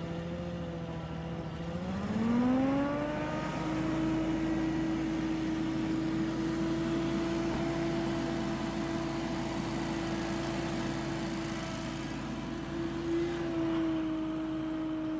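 Billy Goat P2000 stand-on leaf blower running. Its engine is held low for the first two seconds, then throttled up in a smooth rising pitch to full speed, and runs steadily at full speed while it blows leaves.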